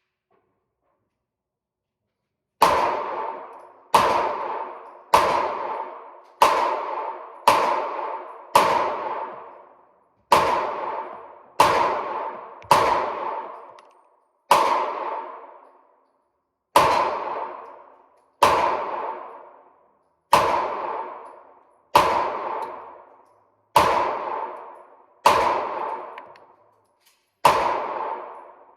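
Handgun shots fired one at a time, about one a second, some nineteen in all. Each crack is followed by a ringing tail that dies away within about a second. They start about two and a half seconds in.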